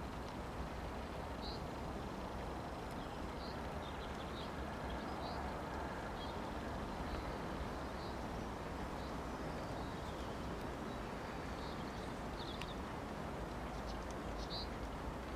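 Steady outdoor background rumble and hiss, with short high chirps from small birds dotted through it, about a dozen in all.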